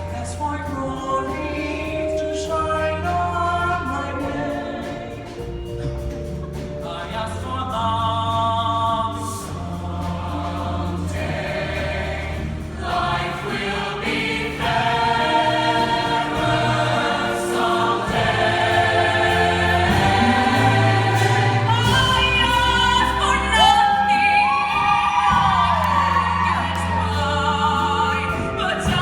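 Singing voices over band accompaniment with a steady bass line, getting louder about halfway through.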